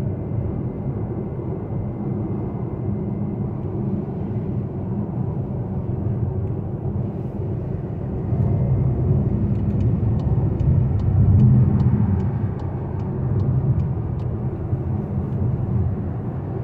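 Steady low road and engine rumble inside a Volkswagen Tiguan's cabin while it drives at highway speed, swelling a little now and then. Partway through there is a run of light, even ticks, about three a second, that lasts a few seconds and then stops.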